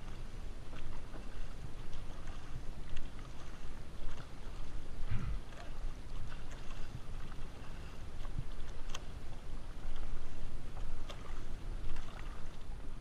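Outrigger canoe under paddle: the blades dip and pull through the water about once a second, with small splashes over a steady low rumble.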